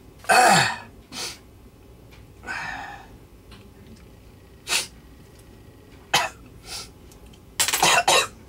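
A man's sudden coughs and sneezes, with a loud one at the start, a loud double one near the end and smaller ones in between. It is his reaction to a pinch of strong menthol nasal snuff that went too far back into his nose and throat.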